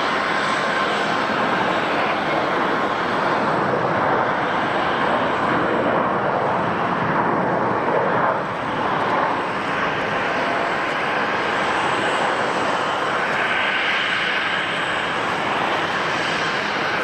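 Jet airliner engines heard as a loud, steady rushing noise, with a brief dip about eight seconds in.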